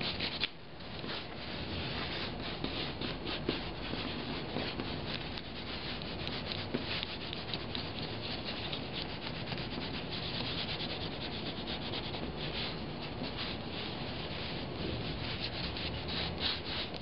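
Two pens scratching across drawing paper at once, a dense run of short, quick strokes, with a brief break about half a second in.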